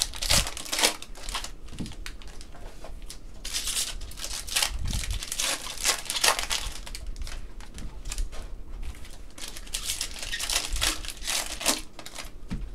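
Plastic wrappers of Panini Contenders basketball card packs crinkling and tearing as gloved hands open them. The crackling is irregular and comes in clusters, heaviest about a second in, around the middle, and again about two-thirds through.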